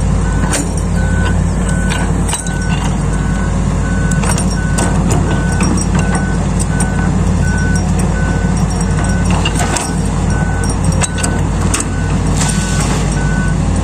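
Long-arm excavator's diesel engine running steadily under load, with its travel alarm beeping at an even rate, a little faster than once a second. A few sharp knocks and clicks come through over the top.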